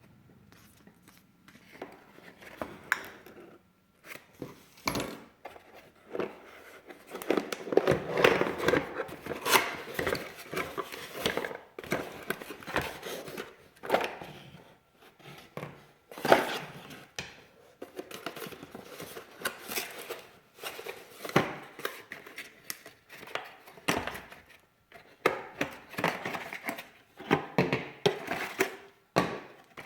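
Packaging being handled and opened: cardboard and plastic rustling and crinkling, with irregular clicks and knocks.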